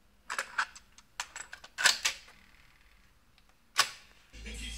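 A cassette being loaded into a Pioneer CT-F1250 cassette deck: a run of plastic clicks and clacks as the tape goes into the well and the cassette door is handled, then one louder single click. Playback starts near the end, with music from the tape coming in.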